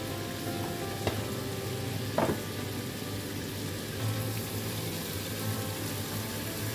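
Sliced green chilies and tomato sizzling in a hot wok, with a plastic spatula stirring them in the second half. A short knock sounds about two seconds in.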